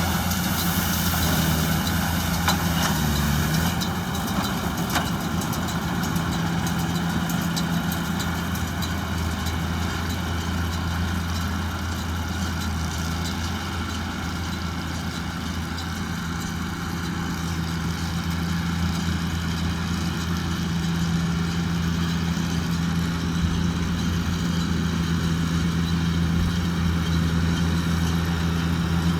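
JCB Fastrac 2170 tractor engine running at a steady speed with a constant low hum while powering a straw baler-wrapper.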